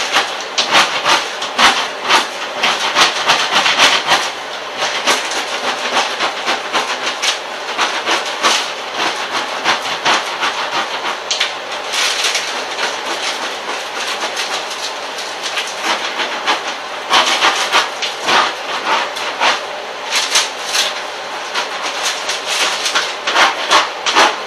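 Peel-and-stick backsplash sheet being peeled from its paper backing and smoothed onto the wall, a continuous irregular crackling and rustling of adhesive vinyl and paper.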